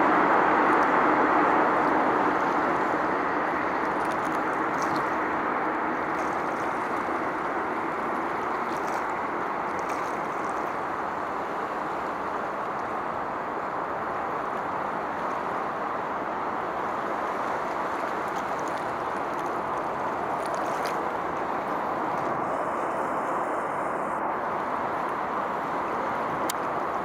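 Steady rushing noise of distant road traffic. It eases off over the first few seconds and then holds steady.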